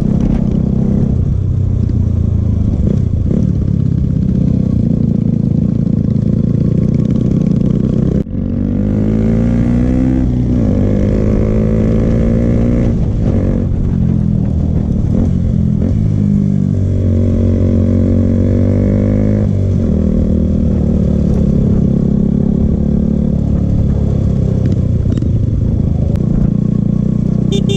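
Royal Enfield Himalayan's single-cylinder engine through an aftermarket Akrapovic exhaust, running as the bike is ridden, its pitch rising and falling with throttle and gear changes. A brief sudden break in the sound about eight seconds in.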